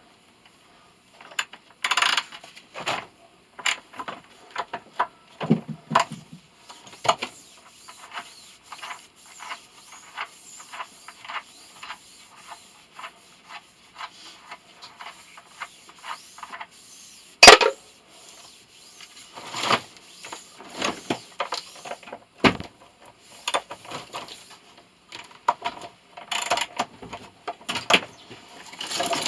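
Irregular clinks, knocks and scrapes of hand tools on metal parts as a motor is taken apart by hand, with one sharp, loud knock a little past the middle.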